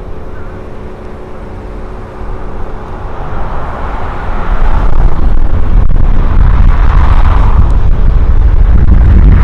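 Road and engine noise of a moving car, a low rumble with rising and falling hiss, which grows much louder about halfway through.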